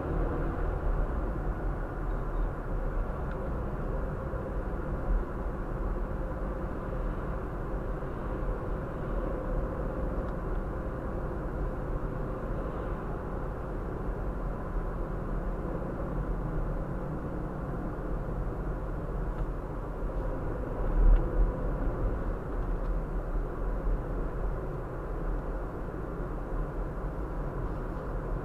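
Steady low rumble of a car driving along, engine and tyre noise heard from inside the cabin, with one short low thump about three-quarters of the way through.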